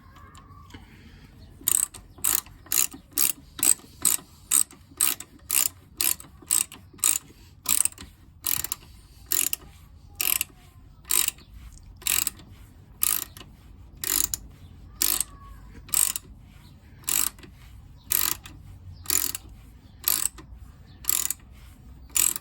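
Ratchet wrench clicking in repeated short strokes as bolts on a motorcycle's rear brake caliper are tightened, about two clicks a second at first, slowing to about one a second.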